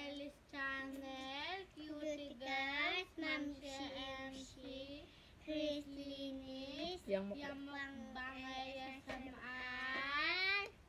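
Young girls singing a song without accompaniment, holding notes and sliding between them, with short breaks between phrases.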